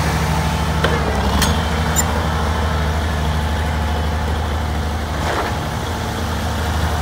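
Oliver farm tractor's engine running steadily as the tractor drives slowly across gravel, with a few light clicks between about one and two seconds in.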